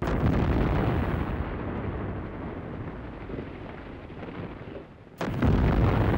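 Two explosions: a sudden blast at the start that rumbles away over several seconds, then a second blast about five seconds in.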